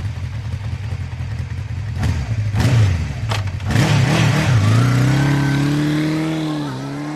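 Motorcycle engine sound effect: the engine runs at idle with a few sharp knocks, then revs and pulls away, its pitch climbing, dipping briefly and climbing again near the end.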